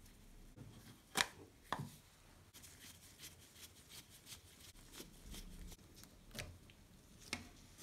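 Clicks and knocks of angle grinder parts being handled on a wooden workbench: two sharp knocks just over a second in, then a run of lighter, irregular clicks and taps as a screwdriver works on the plastic switch housing.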